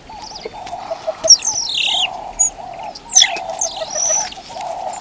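Birds calling with several high, falling whistled notes over a continuous lower chittering.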